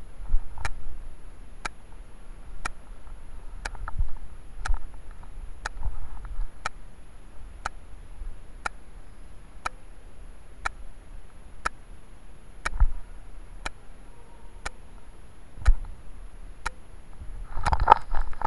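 Sharp, evenly spaced ticks, about one a second, over a faint steady high whine. Muffled low thumps and rustling come and go, louder near the end.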